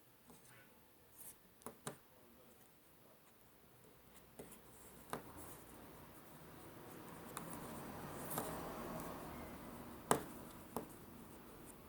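Plastic Lego pieces being handled, with a scattered series of sharp clicks; the loudest click comes about ten seconds in. A soft rustling swells in the middle.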